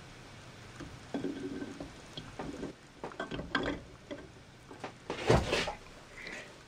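The upper half of a planer's gearbox casting is lowered and wiggled down onto the lower half, its bearings catching before they seat. It makes a string of short metal knocks and scrapes, the loudest a little after five seconds in.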